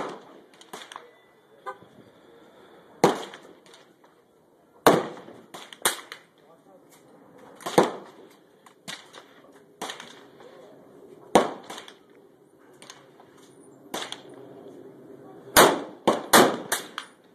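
Rifle shots: a series of sharp cracks at uneven intervals of one to two seconds, with several in quick succession near the end.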